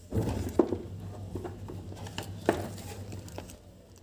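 Clear plastic parts box and small plastic component bags being handled, giving a few sharp clicks and knocks with light rustling.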